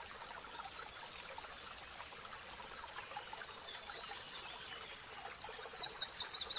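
Faint trickling stream. Near the end comes a quick run of high, falling chirps.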